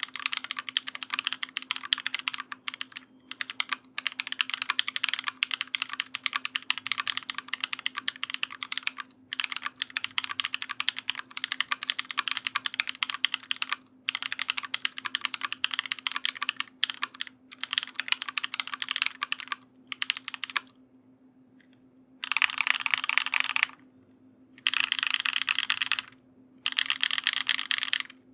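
Custom Monokei Kei mechanical keyboard, with a brass plate, Everglide Bamboo tactile switches and a foam-dampened case, being typed on fast and steadily. The keystrokes come in long runs with brief pauses, and a longer pause comes about 21 seconds in.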